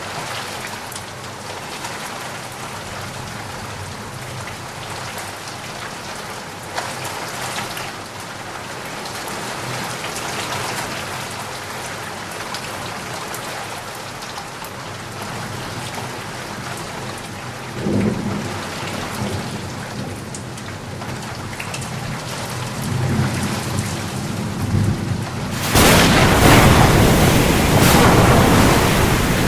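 Steady rain falling, with low thunder rumbling about two-thirds of the way through and again shortly after. Near the end the sound jumps suddenly to a much louder, denser rush of noise.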